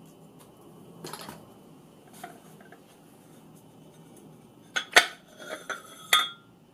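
Metal parts of the gyro unit's housing clinking and knocking together as they are handled: a soft rustle about a second in, then a quick cluster of sharp, ringing metallic taps near the end, the loudest about five seconds in.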